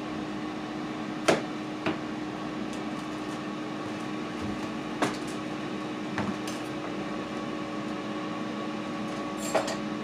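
Ninja air fryer running with a steady hum while cooking, with a few sharp knocks of a knife on a plastic cutting board, the loudest about a second in.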